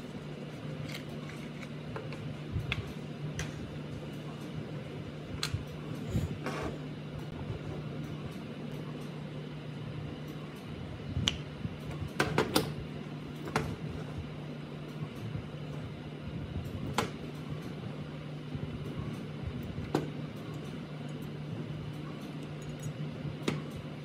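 A steady low hum with scattered sharp clicks and taps, the loudest cluster about twelve seconds in: small metal parts and tools being handled on a workbench.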